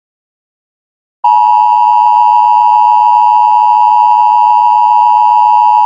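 Emergency Alert System attention signal: a loud, steady two-pitch alarm tone near 1 kHz. It starts about a second in and cuts off abruptly at the end.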